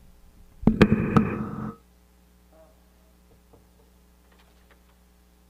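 Handling noise from a handheld microphone being set into a wooden lectern holder: a loud rumble with two sharp knocks lasting about a second, about half a second in. Then only a faint steady electrical hum from the sound system.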